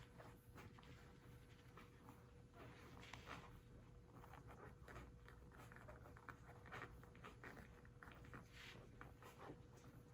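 Faint, irregular light scratching and rustling over a low steady hum.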